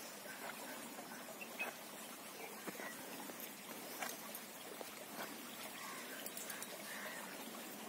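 Faint riverside ambience: a steady low hiss with scattered small clicks and a few brief chirps.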